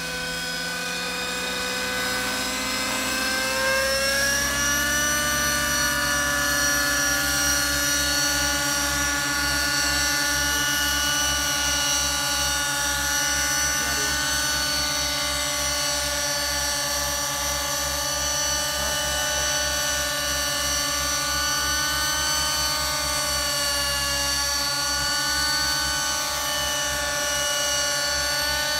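Radio-controlled model helicopters flying, a high whine of several tones together. It rises in pitch over the first few seconds and then holds steady, with a fast low flutter underneath.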